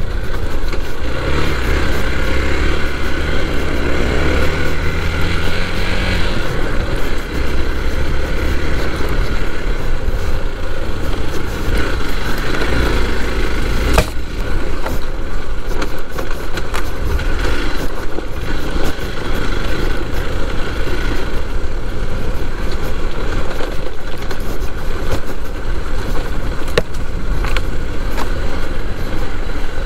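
Hero XPulse 200 4V motorcycle's single-cylinder engine running under way. Its pitch rises over the first few seconds as it accelerates, then holds fairly steady. There is one sharp knock about halfway through.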